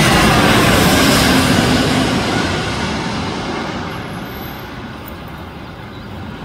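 Airbus A320-family jet airliner passing low overhead on final approach with its gear down. The engine noise is loudest in the first second or two, with a faint falling whine, then fades steadily as the plane moves away.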